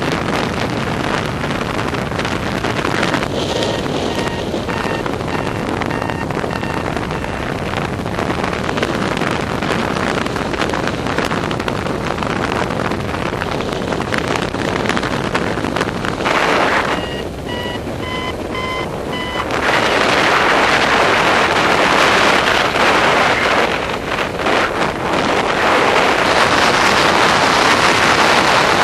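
Rushing wind over the microphone of a paraglider in flight, getting louder in the last third. A paragliding variometer beeps in runs of short pitched tones twice, a few seconds in and again about two-thirds through. The second run steps slightly higher in pitch, the instrument's signal of climbing in lift.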